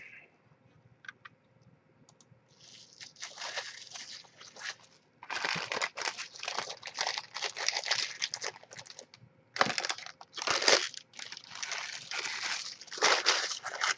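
Packaging handled, crinkling and rustling in irregular bursts, with louder rustles near ten and thirteen seconds.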